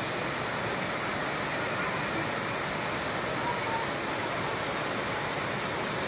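Waterfall cascading down rock ledges into a pool: a steady, even rush of falling water.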